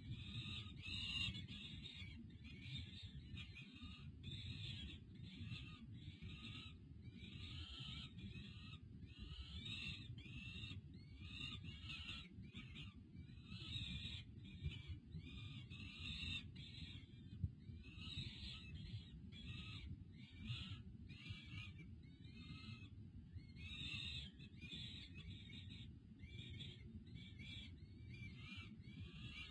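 Peregrine falcon fledglings making food-begging calls while an adult feeds them: short, high calls repeated several times a second, with a low steady rumble underneath.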